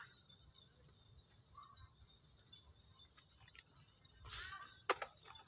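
Insects chirring steadily at a high pitch, faint. Near the end a few sharp clicks and knocks break in, the first the loudest.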